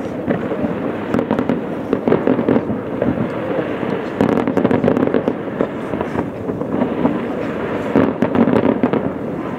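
Fireworks display: aerial shells and firecrackers going off in a dense, unbroken run of bangs and crackles.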